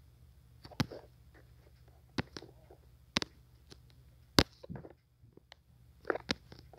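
A series of sharp, irregular clicks and taps, about eight in all, the loudest a little after four seconds in, over a faint steady low hum.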